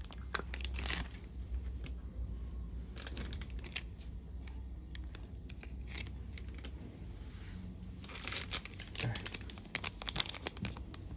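Plastic packaging crinkling and rustling as a shipment of Zippo lighters is unpacked by hand, with scattered small clicks and taps; the handling gets busier in the last few seconds.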